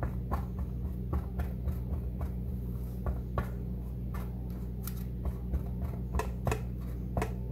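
Metal fork pricking holes in a pressed almond-flour crust in a lined metal pan: a quick, irregular series of light taps and clicks, about two or three a second, over a steady low hum.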